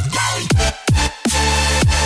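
Electronic dance music with a heavy beat and deep bass notes that slide down in pitch, with a short break in the beat just after the start.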